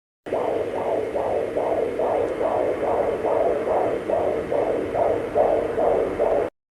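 Fetal heartbeat picked up by a handheld fetal Doppler and played through its speaker: an even pulsing sound at about two and a half beats a second. It starts a moment in and cuts off just before the end.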